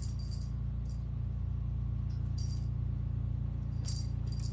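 A small jingle bell shaking in about five short jingles, spaced roughly a second apart, over a steady low hum.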